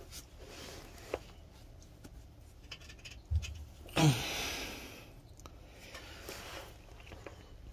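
Filter clamp working an engine oil filter loose: a few sharp clicks of the tool and a low knock. About four seconds in there is a loud sudden sound that slides down in pitch, with about a second of hiss after it.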